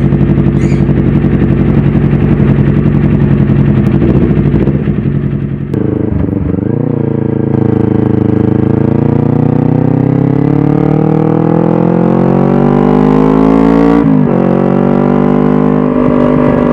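Kawasaki Ninja 250 parallel-twin engine breathing through an aftermarket 3Tech Tridente F22 slip-on silencer and stainless header, running steadily at first. About six seconds in its engine speed starts climbing slowly and evenly for several seconds, then drops abruptly about fourteen seconds in and holds steady.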